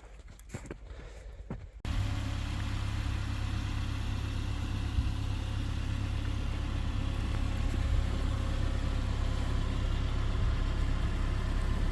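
Faint scattered clicks, then about two seconds in an engine idling steadily starts abruptly, with a strong low rumble.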